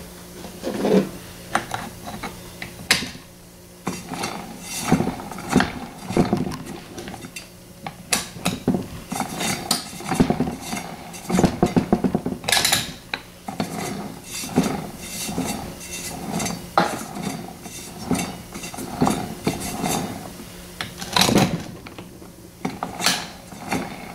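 Metal tool-handling noise on a riding-mower transaxle: an adjustable wrench clinking and scraping against the transmission, with irregular clanks and knocks as the parts and pulley are worked by hand.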